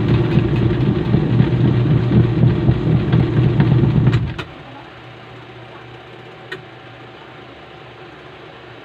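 Washing machine running with a loud, rough hum for about four seconds, then cutting out, with a single click a couple of seconds later. The machine is noisy, which the owner blames on a broken gearbox.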